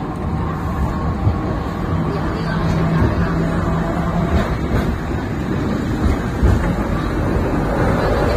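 Hong Kong double-deck "ding ding" tram running along its tracks, heard on board: a steady rumble and rattle of the car in motion, with a low hum between about two and four seconds in.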